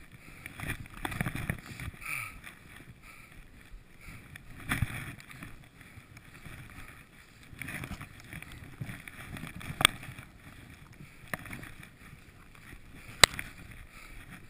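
Skis swishing and scraping through deep powder snow, the sound swelling and fading with each turn, with two sharp clicks late on.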